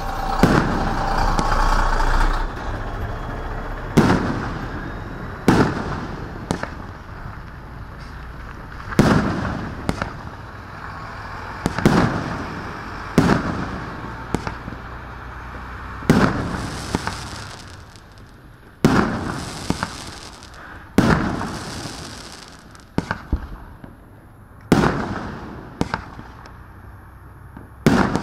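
A 2-inch, 19-shot consumer fireworks cake firing shot after shot: a sharp bang every one to three seconds, each followed by a fading hiss and crackle as the stars burst and fall.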